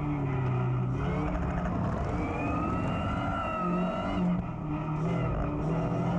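Ariel Nomad R's engine revving hard at speed, heard on board. The pitch climbs, then drops with a brief dip in level about four seconds in, and climbs again.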